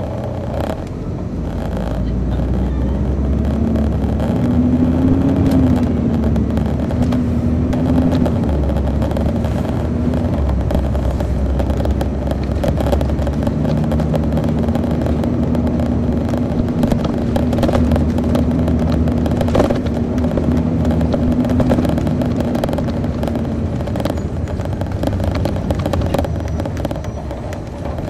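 Detroit Diesel Series 60 diesel engine of a 2002 MCI D4000 coach running, heard from inside the bus with a heavy low rumble. The engine note rises and falls a few seconds in, then holds steady for a long stretch.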